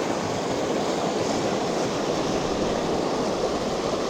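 Fast, swollen river water rushing steadily through whitewater.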